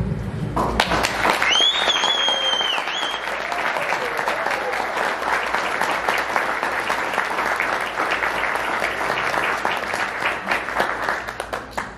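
Party guests applauding, starting about half a second in and dying away near the end, with a shrill held whistle from about a second and a half in for a second or two.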